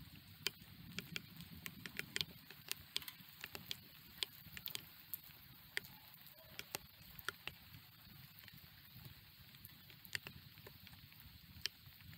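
Rain: scattered raindrops ticking sharply and irregularly close to the microphone, over a faint low rush.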